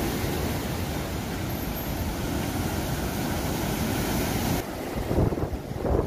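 Storm surf breaking and washing against an eroding sandy bank, with strong wind buffeting the microphone; the sound shifts abruptly about two-thirds of the way through.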